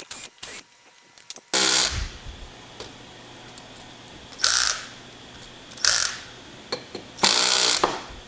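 Hand ratchet turning a cut-off hex key to drive mounting screws, in about five short bursts of ratcheting, irregularly spaced.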